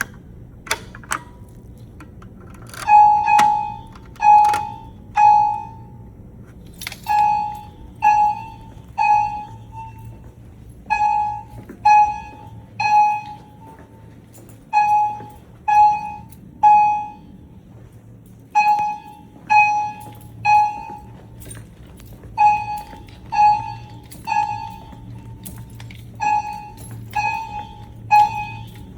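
A few sharp clicks from the fire alarm pull station being pulled, then about two seconds later the hospital fire alarm sounds. A short pitched tone rings out three times in a row, fading after each stroke, then pauses and repeats. This is the temporal-3 pattern that signals a fire evacuation.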